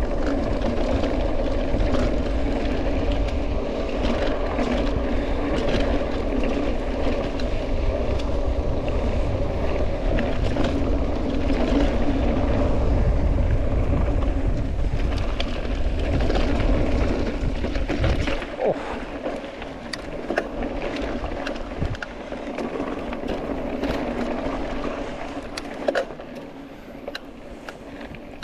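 A vehicle engine running steadily under way, over a strong low rumble that drops away about eighteen seconds in, after which scattered clicks stand out.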